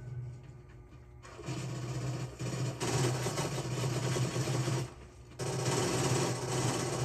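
Vehicle engine running hard while spinning donuts on a wet surface, with a loud hiss of spray over it. It builds up over the first few seconds, drops off briefly about five seconds in, then comes back.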